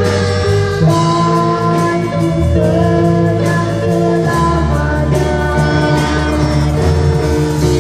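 Live band music played loud through a PA: held chords and melody notes over a bass line, with a boy singing into a microphone.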